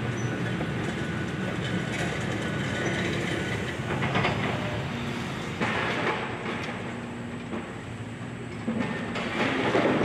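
Demolition excavator's diesel engine running steadily, with bursts of crunching and clattering debris about four, six and nine seconds in, loudest near the end.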